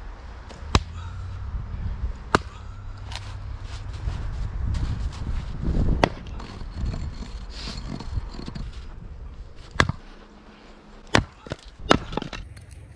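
Axe splitting firewood rounds on a chopping block: about six sharp cracks of the blade biting into and splitting the wood, irregularly spaced, two of them close together near the end.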